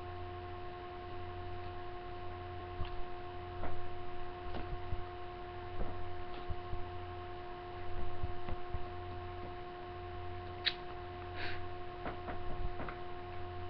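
Steady electrical hum with a few even tones, with scattered faint clicks and rustles of hand movement.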